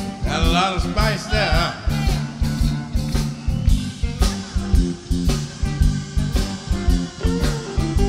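Live blues band playing: electric guitars over electric bass and drum kit in a steady beat, with a wavering lead line over the first couple of seconds.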